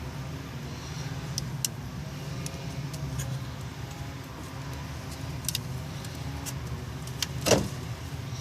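Scattered light metallic clicks and clinks of parts and tools being handled in a car's engine bay, with one louder clank about seven and a half seconds in, over a steady low hum.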